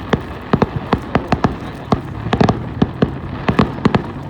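Fireworks going off: a dense, irregular string of sharp pops and bangs, several a second.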